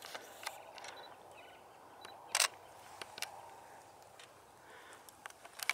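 Quiet outdoor ambience broken by a few short, sharp clicks. The loudest click comes about two and a half seconds in, and a few more come near the end.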